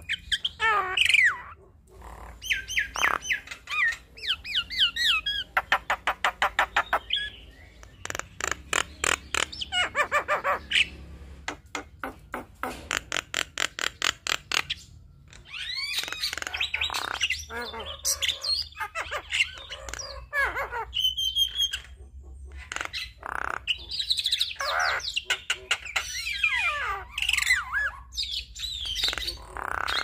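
Javan myna singing a long, varied song. Fast runs of short repeated notes, about eight a second, alternate with squeaky, warbling chatter phrases.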